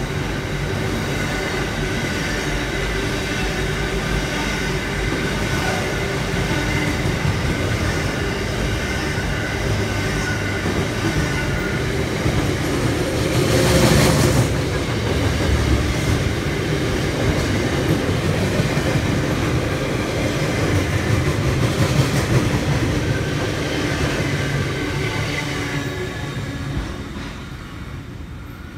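Freight wagons rolling past on steel rails: a steady rumble of wheels and bogies with a high steady wheel squeal over it. It swells louder for a moment about halfway through, then dies away near the end as the last wagon clears.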